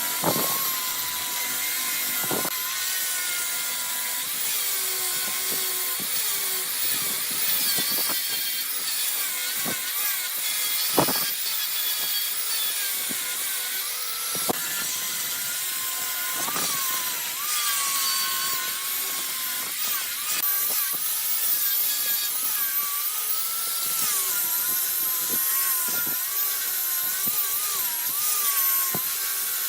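Wood being turned on a lathe: a steady hiss of the cutting tool on the spinning wood over a wavering whine, with a few sharp knocks.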